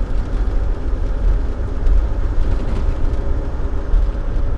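Steady engine and road noise heard from inside a moving vehicle's cabin, a constant low rumble.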